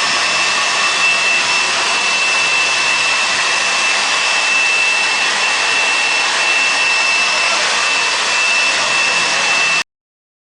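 Carpet-cleaning machine's motor running steadily with a high whine over a rushing hiss, stopping abruptly near the end.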